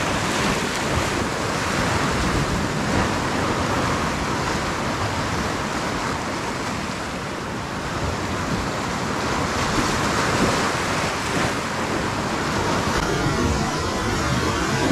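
Sea waves washing and breaking against shoreline rocks: a steady rush of surf, with wind across the microphone.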